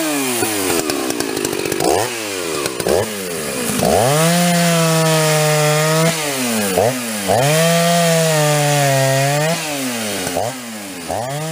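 Big-bore Jonsered chainsaw from the 910/920/930 series run at full throttle in a cut, its engine note repeatedly pulling down and recovering as the chain bites. The chain is dull and badly filed, with the rakers cut down, so it grabs and throws fine dust rather than chips; the owner says it needs a new chain.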